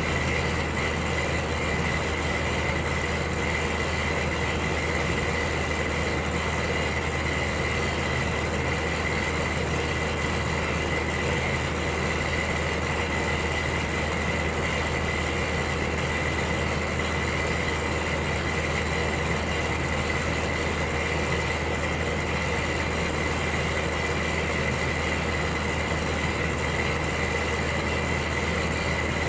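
Electric heater running steadily: an even hum with a constant rush of noise over it and a thin, steady high whine.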